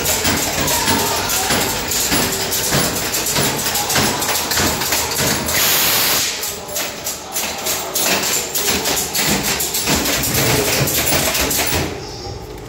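Ghost-train dark ride: a dense clatter of knocks and rattles over loud music, with a short burst of hiss about five and a half seconds in. The noise drops suddenly near the end.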